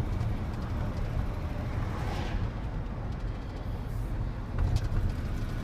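Pickup truck heard from inside the cab while driving: a steady low engine and road rumble, with a brief hiss about two seconds in.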